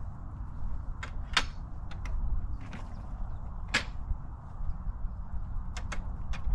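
Wind rumbling on the microphone, with a handful of sharp clicks, the loudest about a second and a half in and nearly four seconds in.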